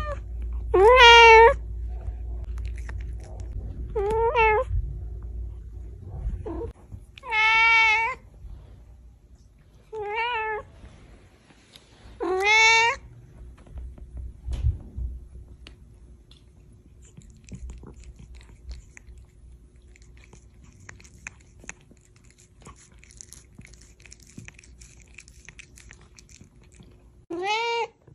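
Pet cat meowing: five drawn-out meows every few seconds, then a long pause before a last meow near the end.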